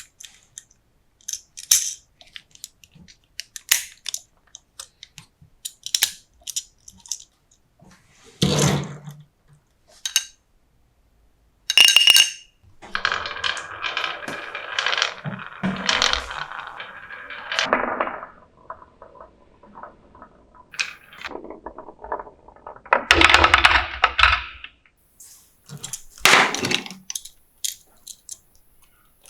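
Marbles clicking and rolling down a marble run: scattered sharp clicks, a longer rattling roll from about 13 to 18 seconds in, and a few louder clatters.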